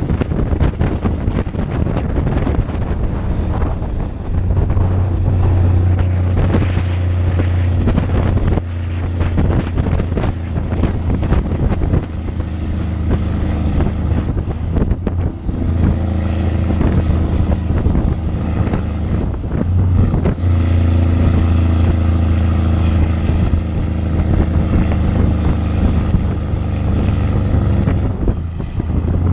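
Straight-piped 600 hp Mack truck diesel pulling hard up a grade under a heavy load of about 58,000 kg gross, a steady low drone with a couple of brief dips. Wind buffets the microphone.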